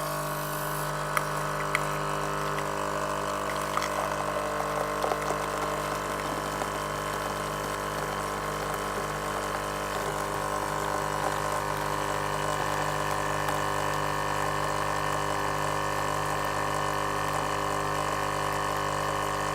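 Nescafé Dolce Gusto mini coffee machine's pump running steadily as it forces hot water through a capsule, a constant hum with faint crackling and spluttering in the first half.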